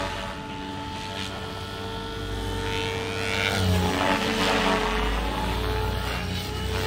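SAB Goblin 500 Sport electric RC helicopter in flight: a steady whine from the motor and rotor blades that shifts in pitch as it manoeuvres, growing louder about halfway through.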